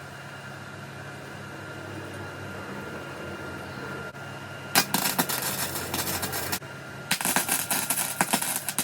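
Arc welding tack welds on 40x40 steel box section: a faint steady hum, then about five seconds in the welding arc crackling for about two seconds, a short break, and a second run of crackling near the end.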